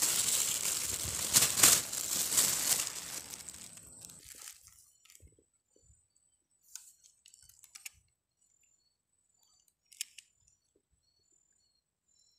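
Loud rustling and crackling for about the first four seconds, then fading to a few faint scattered clicks, with one short crackle near the ten-second mark.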